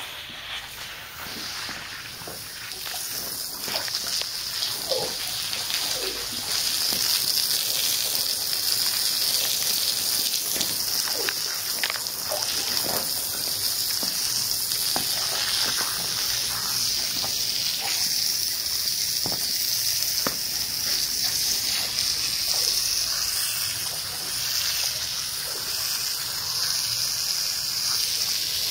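Water from a garden hose spraying onto a soapy, foam-covered rug, a steady splashing hiss that grows louder over the first few seconds.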